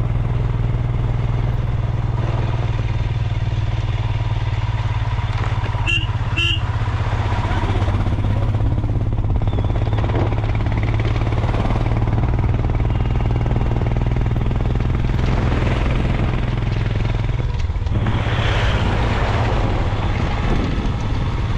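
Motorcycle engine running steadily while the bike is ridden, a constant low drone under a noisy rush, with two brief high-pitched blips about six seconds in.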